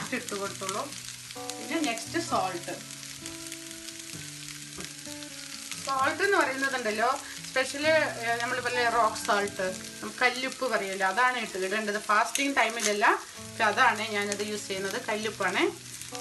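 Potatoes frying in an oiled pan, a soft sizzle under background music with a melody line. The music drops back briefly a few seconds in.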